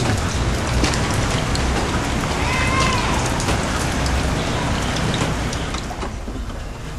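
Heavy rain falling, a dense steady hiss with many small drop ticks, dropping away about six seconds in.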